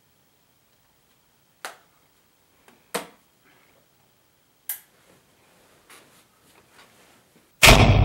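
Quiet room with three sharp clicks or knocks a second or two apart and faint small noises between them. Near the end, loud music with deep drum hits starts suddenly.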